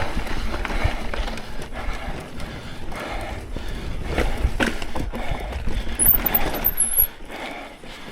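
Mountain bike rolling over a dirt trail: tyre noise and frame rattle over a steady wind rumble on the camera microphone, with uneven noisy swells every half second or so.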